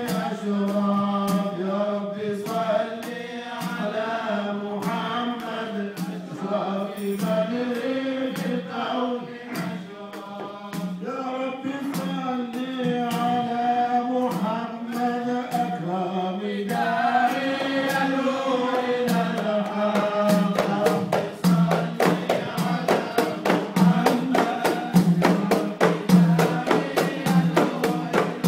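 A group of men chanting a devotional hymn together in long, drawn-out melodic lines. About two-thirds of the way through, hand-played frame drums join in with a quick, steady beat under the voices.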